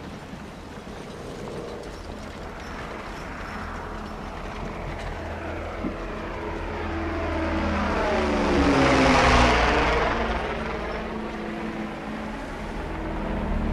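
An engine passing close by: it builds from a couple of seconds in, is loudest about nine seconds in, then fades away, over a steady low rumble.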